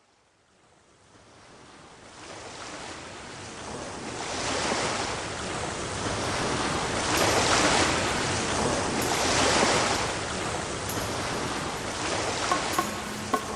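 A rushing, surf-like noise that fades in from silence and swells and ebbs every two seconds or so. A few soft music notes come in near the end.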